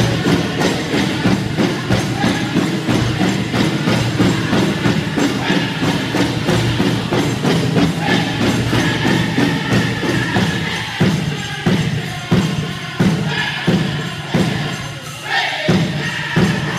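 Pow-wow drum group singing a chicken dance song in chorus over a fast, steady big-drum beat. In the last few seconds the beat changes to heavier single strokes about a second apart.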